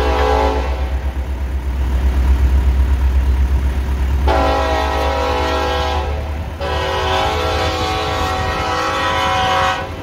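Train horn blowing long, steady chord blasts: one ends just after the start, then two more follow from about four seconds in, the last held almost to the end. A steady low rumble runs underneath.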